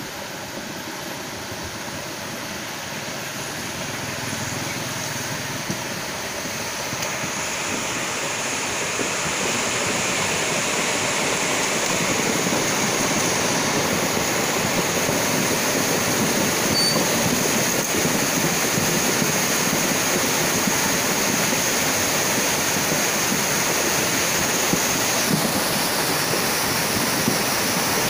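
Rushing noise of a flash flood's muddy front, the head of a debris flow, surging down a dry boulder riverbed. It grows louder over the first ten seconds or so as the flood arrives, then holds as a steady rush.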